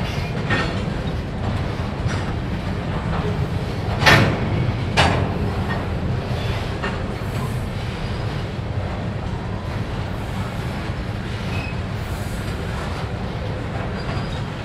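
Freight train of covered hoppers and tank cars rolling slowly past with a steady low rumble and scattered wheel clicks. Two sharp, loud clanks come about four and five seconds in.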